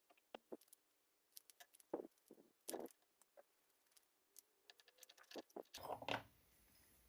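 Faint scattered clicks and light knocks of small hard objects being handled, with a louder cluster of handling sounds near the end. A low steady background hum comes in just before the end.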